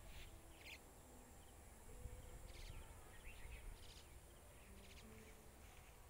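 Near silence: quiet rural ambience with several faint, short bird chirps scattered through, over a low rumble.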